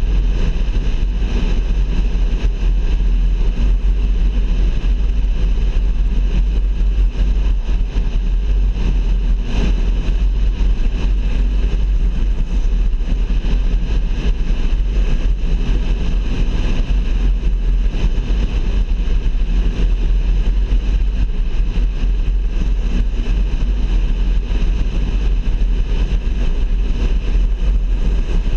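Car driving along a highway: a steady drone of engine and tyre noise over a deep, even rumble.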